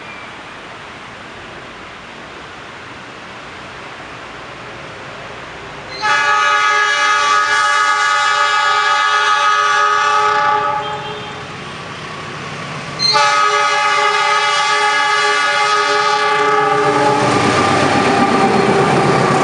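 Locomotive horn of the Argo Muria passenger train, sounded long by the driver: two long blasts of about four seconds each, a chord of several tones, with a short gap between them. After the second blast the train's running noise swells loudly as it comes past.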